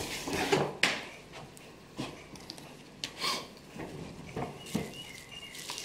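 Scattered light knocks, clicks and rustles of someone handling things, several seconds apart, with no steady sound running underneath.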